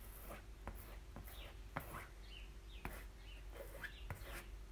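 Soft scraping and swishing of a small spreader working chalk paste through a fine mesh stencil on fabric, with several light clicks as the tool taps and lifts.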